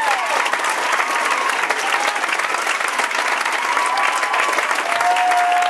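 Audience applauding steadily, with scattered whoops from the crowd and one long held call near the end.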